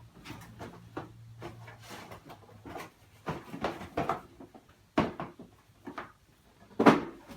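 Cardboard shoeboxes and sneakers being handled: a string of short knocks, rubs and rustles, with two sharper thumps, one about five seconds in and a louder one near the end.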